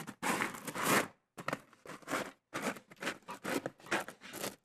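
Reflective insulation sheet being handled and fitted into place: irregular short bursts of rustling and crinkling.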